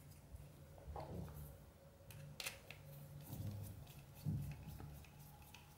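Faint clicks and knocks of the Sharp GF-700's cassette tape-transport mechanism, a metal chassis with plastic parts, being handled and set back in place for reassembly, with a louder bump about four seconds in, over a low steady hum.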